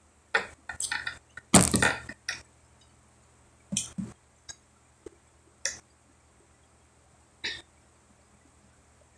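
Mouth and throat noises of a person eating and sipping through a straw. A cluster of short bursts comes in the first two and a half seconds, the loudest and longest about one and a half seconds in, then single short ones every second or two.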